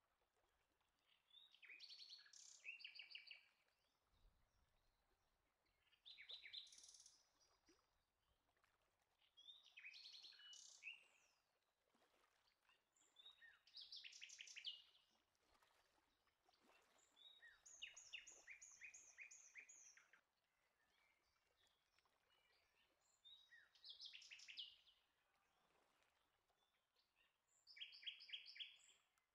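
A songbird singing faintly: seven short phrases of quick repeated high notes, about one every four seconds, with quiet pauses between them.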